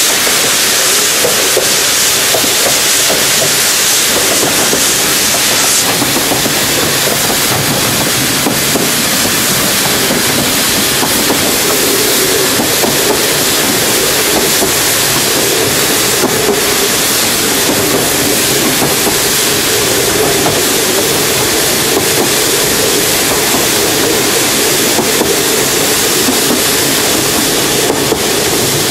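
Narrow gauge steam locomotive running along the line, heard from its footplate: a strong hiss of steam for the first six seconds or so, then easing, over the steady noise of the engine working and the wheels on the track.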